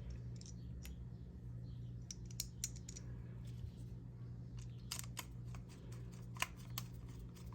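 Small metal carburetor parts clicking and tapping as they are handled and fitted back together, a dozen or so sharp clicks scattered through, over a steady low hum.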